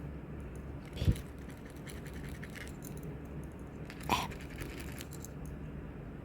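Scratch-off lottery ticket being scratched, with faint scattered scraping clicks, a thump about a second in and a short, louder scratch stroke about four seconds in.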